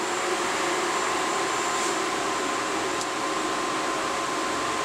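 Twin electric radiator fans in a Subaru Impreza's engine bay running steadily, switched on through the MegaSquirt ECU's test mode: an even rush of air with a faint steady whine.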